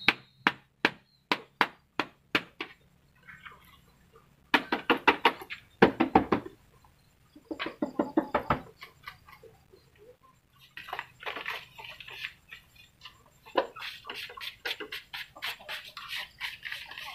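Sharp taps and knocks as a plastic tray and egg-laying strips are struck against the rim of a plastic basin to shake black soldier fly eggs loose. It starts with a slow, even series of single taps, then comes in quicker rattling runs of taps.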